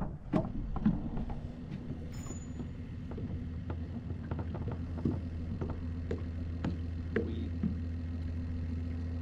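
Boat motor running with a steady low hum that comes up over the first few seconds, with a few light clicks and knocks over it.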